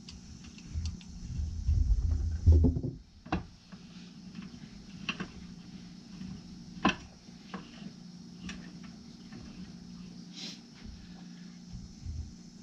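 Crankshaft being fitted into a Briggs and Stratton 23A engine block by hand: low thumps and knocks for about the first three seconds, then a few sharp scattered clicks, over a steady low hum.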